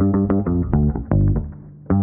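Background music with plucked bass and guitar notes in a steady rhythm.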